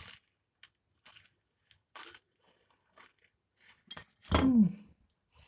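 Biting into and chewing a chicken tikka pastry slice, with short soft crunches of the pastry. About four seconds in, a short hummed 'mm' falling in pitch, the loudest sound.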